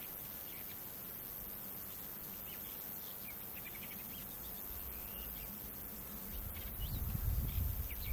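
Nature ambience: small birds giving short chirps and quick trills now and then, over a steady high insect hum. About six seconds in, a low rumble swells up and grows louder to the end, becoming the loudest sound.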